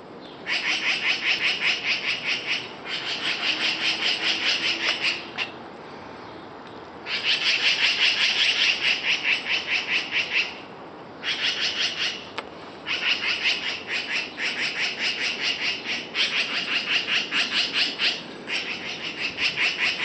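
Black-billed magpies giving rapid, harsh chatter calls in repeated bouts of a few seconds each with short pauses between: alarm chatter mobbing a cat near their nest.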